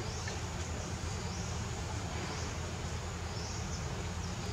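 Outdoor ambience: a steady low rumble under an even hiss, with a faint high chirp repeating about once a second.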